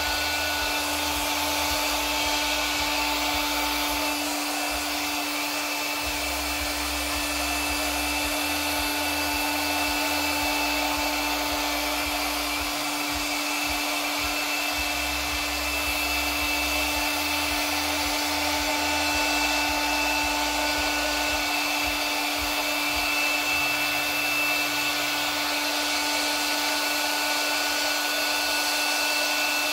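Handheld hot-air blower running steadily: a constant rush of air over a steady motor hum. This is the kind of tool used to push and marble wet resin and to pop its surface bubbles.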